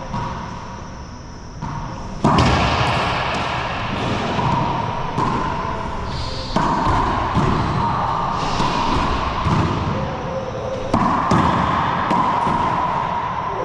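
Racquetball rally in an enclosed court: the rubber ball smacking off racquet strings and the walls and floor in quick succession, each hit echoing in the bare court. The hits come thick and fast from about two seconds in.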